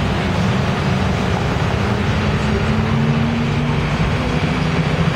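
A New York City transit bus's engine running with a steady low drone as the bus drives past, over general street traffic noise.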